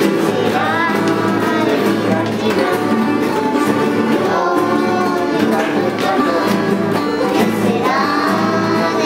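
A group of children singing a song together while strumming acoustic guitars, with a steady strummed rhythm under the voices.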